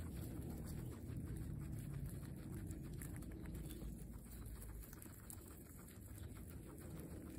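Guinea pigs chewing fresh grass close up: a fast, irregular stream of small crunching clicks over a low rumble.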